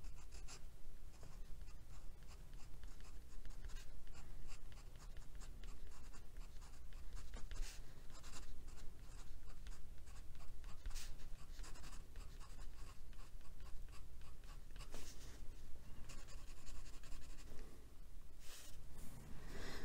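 Glass dip pen nib scratching across textured watercolour paper in many short, irregular strokes while writing by hand.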